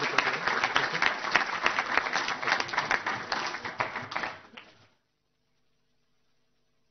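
Audience applauding: many hands clapping together, fading out and stopping about five seconds in.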